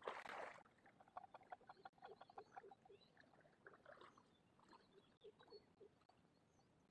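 A short splash of water as the wet cast net is lifted and gathered, then faint, rapid chirping calls of small animals repeating several times a second.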